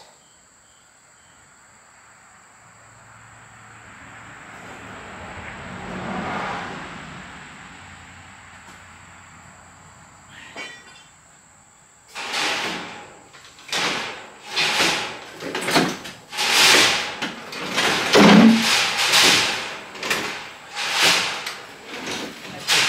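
Heavy cast-iron bandsaw frame on a dolly being shoved and dragged off a trailer ramp: about halfway through, a run of loud scraping bursts begins, roughly one a second. Before that, a soft rush of noise swells and fades.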